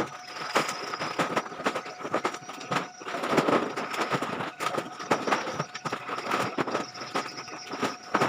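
Sacks and bundles of scrap plastic being handled and thrown up onto a load: irregular knocks, crackling and rustling, with a busier stretch a few seconds in, over a faint steady hum.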